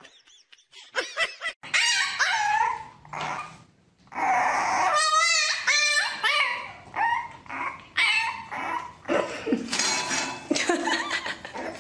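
Puppies whining and yipping: short cries in the first few seconds, then, after a brief pause about four seconds in, a French bulldog puppy's high, wavering whines and yelps.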